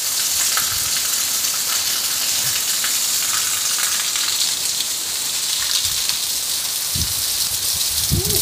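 Heavy rain falling steadily, an even, dense hiss of rain pouring down on clay-tile roofs.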